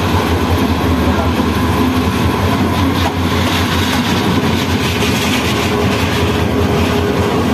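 Two trains passing close alongside: a Bangladesh Railway diesel locomotive and its coaches go by with a loud, steady rumble of wheels on the rails over a constant low engine drone.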